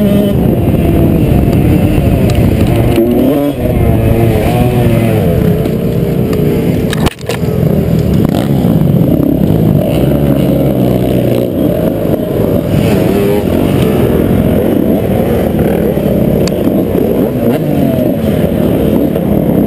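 Motocross bike engine running hard and revving, heard close from a helmet camera, with a sudden break about seven seconds in; after it, several motocross bikes rev and run at low speed close by.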